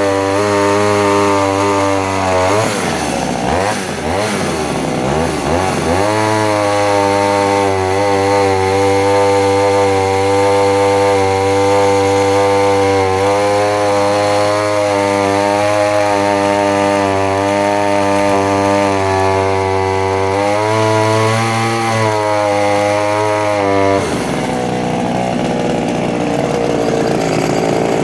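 Vintage 1970s Pioneer P20 51cc two-stroke chainsaw running hard while cutting small logs, its engine note steady and high, dipping and wavering twice as it loads up, then dropping to a lower, rougher sound near the end. The owner judges the carburettor's needle setting slightly rich.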